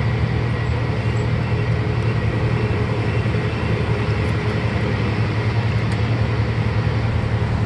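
Tram's motor running steadily as it drives along the road, heard from aboard: a low, steady drone with road noise.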